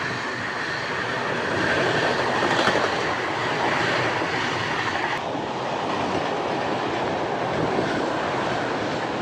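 Train running along the track, a steady rolling rumble and hiss of wheels on rails. A faint high tone in the noise stops abruptly about five seconds in.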